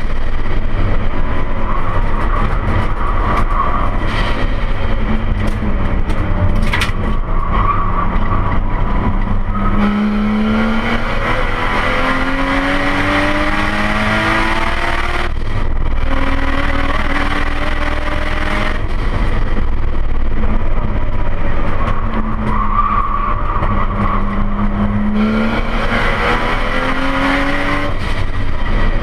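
Nissan Skyline R32's turbocharged RB25DET straight-six, heard from inside the cabin, accelerating hard through the gears. Its pitch climbs, drops sharply at each upshift and climbs again, with lower, steadier stretches between the pulls.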